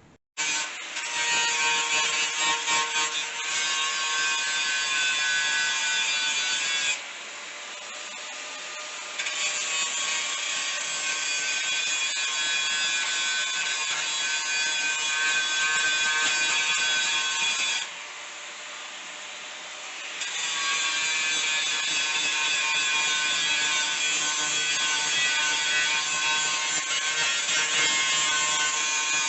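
Electric angle grinder grinding down welds and rust on steel sheet metal: a loud, steady whine with a rasping edge. Twice it eases off to a quieter, lighter sound for about two seconds, at about seven and about eighteen seconds in, before bearing down again.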